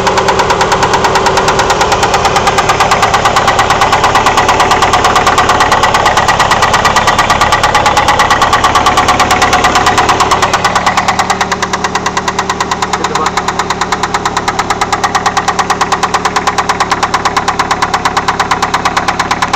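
Engine running with a rapid, regular knock in time with its rotation, which the owner asks could be a worn rod bearing. The sound drops somewhat in level about halfway through.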